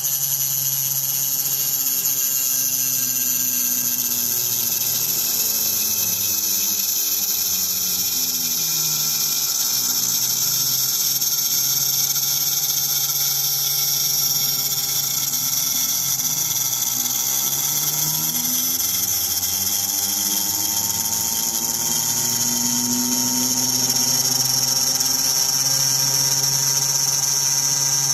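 CNC router milling aluminium: the high-speed spindle gives a steady high-pitched whine, while the axis drive motors whine lower, sliding up and down in pitch as the head speeds up and slows along the toolpath.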